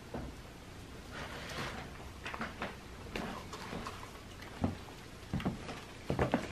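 Cat chewing dry cat food, with irregular crunches and several louder ones in the second half.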